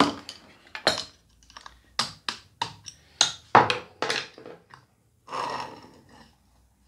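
Piston pin of an IZh Jupiter 3 engine being driven out of the piston with a hammer and drift: about ten sharp metallic taps in the first four seconds, then a brief scrape.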